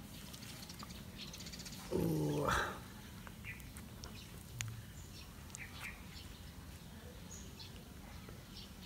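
A single short animal call about two seconds in, lasting under a second. Faint short ticks and chirps are scattered around it over a low background hum.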